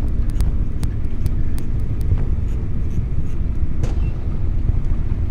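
Boat motor running with a steady low rumble and hum, with a few sharp clicks scattered through.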